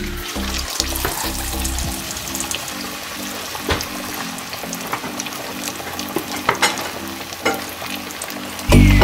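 Besan-battered fish pieces frying in hot oil in a pan: a steady sizzle with scattered sharp pops and crackles. Background music comes up loud near the end.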